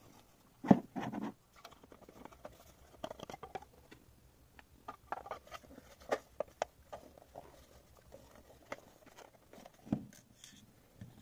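Plastic housing of an AirGradient Open Air outdoor air-quality monitor being handled and fitted together: a run of small plastic clicks, knocks and scrapes, with a sharp knock about a second in and another near the end.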